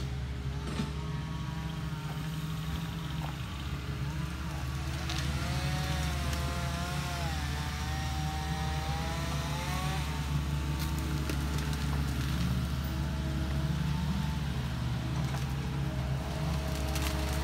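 Steady low drone of a heavy-equipment diesel engine, a skid-steer loader, running continuously as it works debris.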